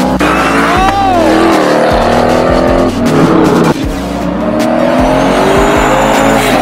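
Car engines revving and accelerating hard, the pitch climbing and falling, with sudden breaks where the sound changes abruptly about three seconds in and again a moment later.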